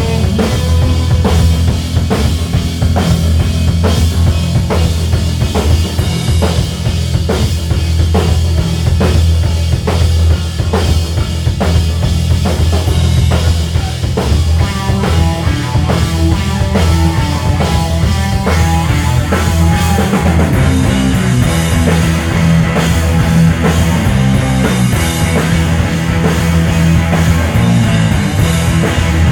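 Rock band playing live: electric guitars and bass over a drum kit keeping a steady beat of about two hits a second. A higher melodic line stands out for several seconds about halfway through.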